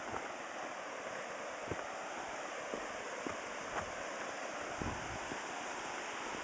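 Steady rushing hiss of outdoor air noise, with a few soft, irregular thuds of footsteps as someone walks down a forest trail.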